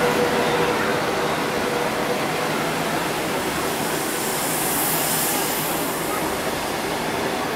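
Passenger coaches of a locomotive-hauled through train passing close by at speed: a steady rush and rumble of wheels on rail, with a brief swell of hiss about five seconds in.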